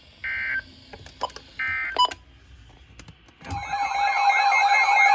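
Two short warbling digital data bursts from an Emergency Alert System broadcast: the SAME end-of-message tones closing the marine warning. A few clicks follow. About three and a half seconds in, a loud alert tone starts, a steady tone with warbling sweeps over it: the attention signal opening the next alert.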